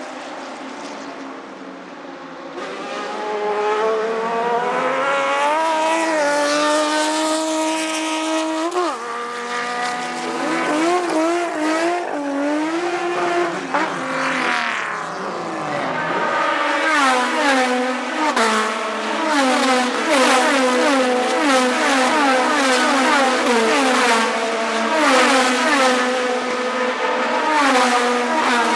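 Race car engine revving hard, its pitch climbing and dropping repeatedly. In the second half it rises and falls in quick short sweeps.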